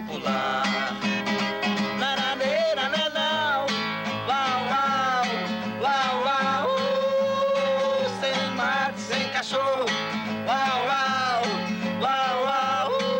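A man singing a melody while strumming and plucking an acoustic guitar, his voice sliding between notes and holding long tones, some near the end.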